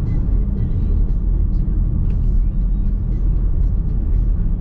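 Steady low road rumble of tyres and drivetrain heard inside the cabin of a Nissan X-Trail Hybrid while it is driving.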